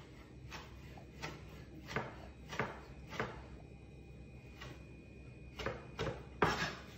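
Chef's knife chopping sun-dried tomatoes on a plastic cutting board: irregular knocks of the blade hitting the board, roughly one or two a second, the loudest a little before the end.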